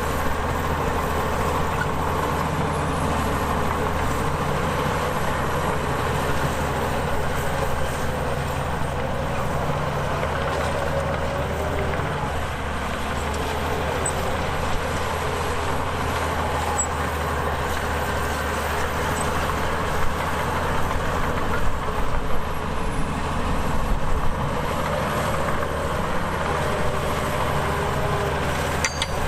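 Heavy diesel earthmoving machinery running steadily under load, with a low engine hum and a few sharper knocks about two-thirds of the way through.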